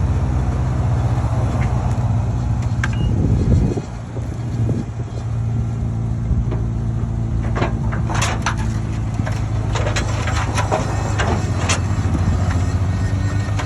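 A vehicle engine running at a steady speed, its note changing briefly about four seconds in. From about eight to twelve seconds in there is a run of sharp clicks and knocks.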